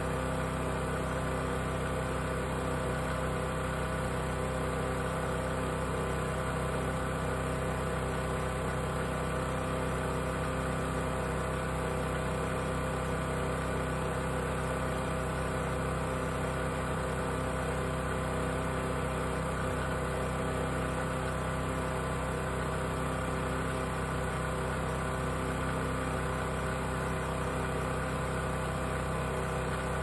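Great Circle USA mini wood chipper's small gasoline engine running steadily with nothing being fed, an even unchanging engine note with no load.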